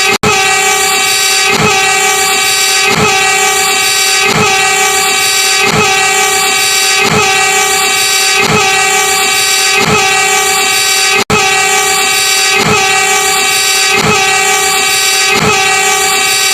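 Horn of an Indonesian railway track-measuring car (kereta ukur) held as one loud, steady tone, with a regular pulse about every second and a half. It cuts out for an instant twice: just after the start and about eleven seconds in.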